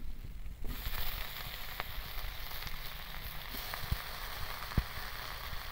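Cut Malabar spinach stems, leaves and potato pieces tipped into hot oil in a karahi, sizzling suddenly from about a second in and frying steadily, with a few sharp knocks.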